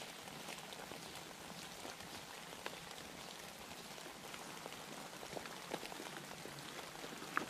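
Light rain falling: a steady hiss with scattered drops ticking, and one sharper tick near the end.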